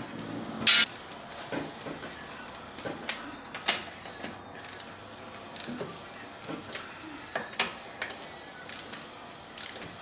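Torque wrench set to 84 foot-pounds ratcheting on the wheel's lug nuts as they are tightened: irregular metallic clicks, with one sharp clink under a second in.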